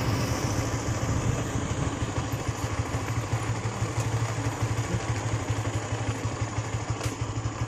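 A vehicle's engine running steadily on the move, a low even hum with road and wind noise over it.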